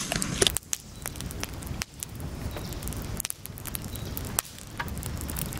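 Wood campfire crackling, with scattered sharp pops and clicks over a low, noisy background.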